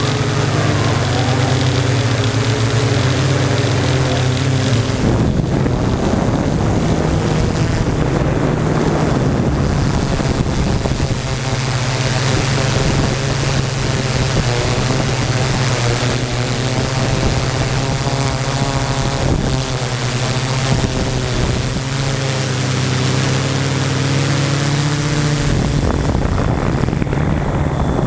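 Yuneec Typhoon G quadcopter's motors and propellers running in flight, heard up close from the camera on the drone itself: a steady buzzing hum whose pitch shifts as it manoeuvres, with a rougher rush of noise through the middle.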